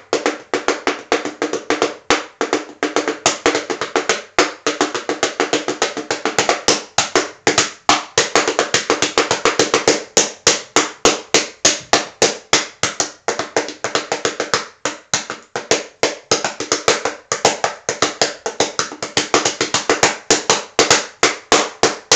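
Child's toy bongos played by hand in a fast, steady rhythm of about five strokes a second, each stroke with a short pitched ring; the playing stops near the end.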